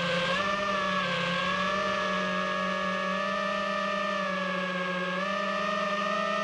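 FPV quadcopter's brushless motors and propellers whining steadily, heard from on board the drone; the pitch wavers slightly with throttle and steps up a little about five seconds in.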